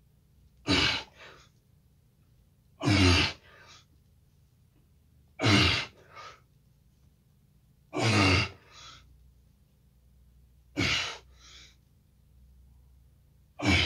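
A man breathing out hard with each push-up: five strong exhalations about two and a half seconds apart, each followed by a shorter, softer puff.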